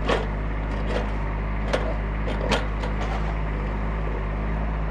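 Kubota diesel engine running steadily under a string of sharp knocks, as a machine's bucket or grapple works old timbers and railroad ties out of the ground.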